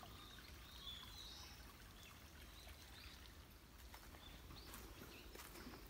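Near silence: faint woodland ambience, small birds chirping briefly now and then over a low, even hiss, with a couple of soft footsteps near the end.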